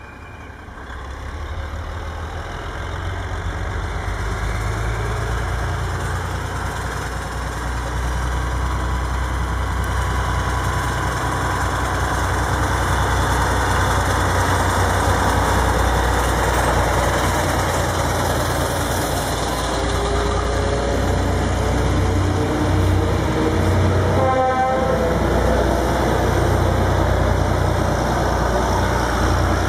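Two vintage M262 diesel railcars running under power: a steady low diesel rumble that grows louder as the train approaches and passes close by, the engine note rising as it accelerates. A short horn toot sounds about three-quarters of the way through.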